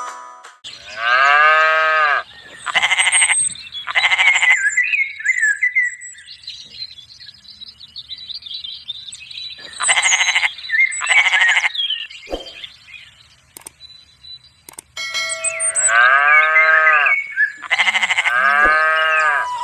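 Sheep bleating, about seven wavering bleats in three bunches spread through the stretch, with quieter gaps between them.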